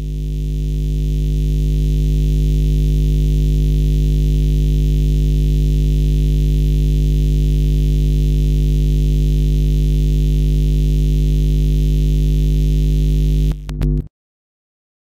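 Music: a loud, steady low drone of several held tones that swells in over the first couple of seconds, holds without change, and cuts off abruptly about fourteen seconds in.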